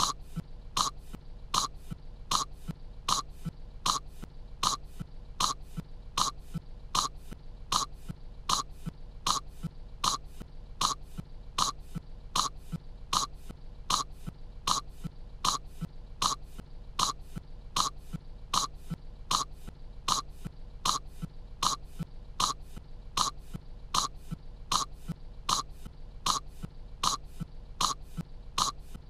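A young cartoon girl's voice coughing in short, identical hacks, repeated evenly a little more than once a second as one cough looped over and over.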